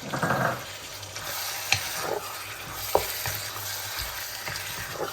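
A spiced onion and yogurt mixture frying and sizzling in oil in a pot as it is stirred, with a spoon knocking against the pot several times.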